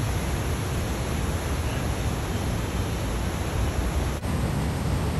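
Steady rushing roar of Niagara Falls' water, an even hiss-like noise with no pauses and a brief dip about four seconds in.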